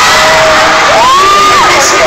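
Loud arena crowd of fans screaming and cheering without a break, with single high-pitched screams close by that hold, rise and fall over the din.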